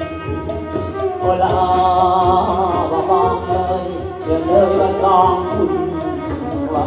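Kantrum, Northern Khmer folk music: a sliding, ornamented vocal melody sung through a microphone over the ensemble's steady percussion beat.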